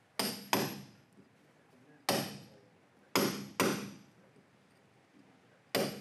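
Hammer blows on a chisel chipping into cured cement render, six sharp, uneven strikes, some in quick pairs, each ringing briefly. They cut the render away around a wooden guide strip set in the wall to loosen it for removal.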